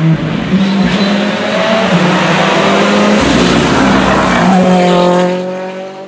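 Rally car engine at full throttle on a tarmac stage, its note shifting in steps as it drives the car hard past, then fading near the end.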